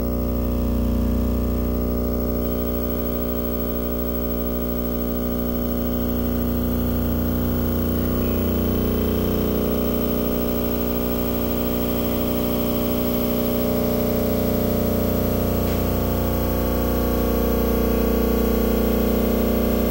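Experimental electronic drone: a dense stack of many steady tones held together, with a faint rapid flutter in the low end, swelling slightly louder near the end.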